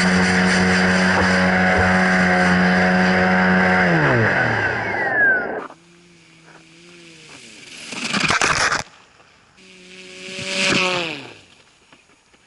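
Propeller-driven radio-controlled boogie-board craft running at a steady high speed, its motor and propeller making a loud even drone that falls in pitch and cuts off about five seconds in. After that the motor is heard much fainter, revving up and down, with two short louder swells.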